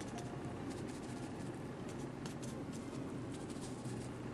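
Faint, irregular soft taps of a cotton pad dabbing powder onto the edge of a bald cap, over a steady room hiss.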